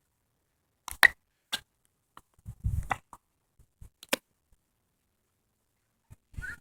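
A few short, scattered clicks and light knocks with near silence between them, quietest for the last couple of seconds.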